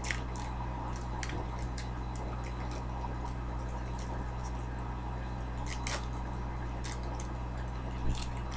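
Foil Pokémon trading-card booster pack being handled and torn open, a few faint crinkles and clicks over a steady low hum.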